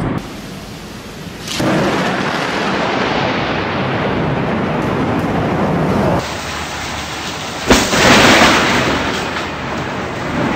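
Thunderstorm with rain. A sharp crack of thunder about a second and a half in gives way to a loud, sustained rumble. Past the middle comes a second, very sharp close thunderclap, followed by a loud crash that fades over a couple of seconds.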